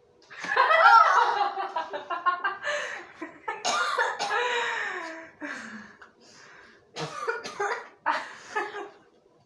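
A girl coughing and gagging with disgusted vocal noises, in reaction to the smell of wet cat food mixed with paint.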